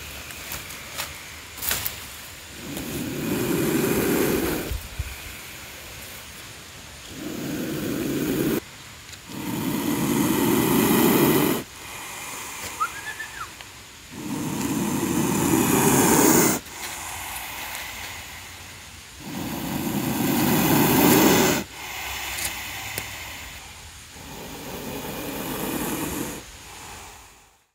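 Spectacled cobra hissing in long, loud breaths, about six hisses of two to three seconds each with quieter pauses between.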